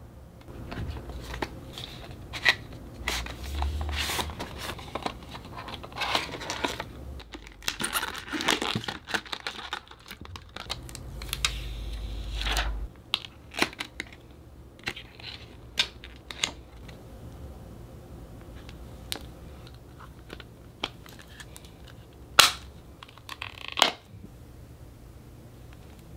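Hands handling a plastic phone case and its packaging: rustling and crinkling with many clicks and taps through the first half, then scattered taps. Two sharp clicks near the end as the case is snapped onto the phone.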